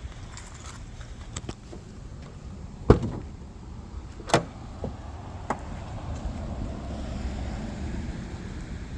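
A car door being opened: a sharp latch click about three seconds in, then a second clunk and a few lighter clicks, over a low steady rumble.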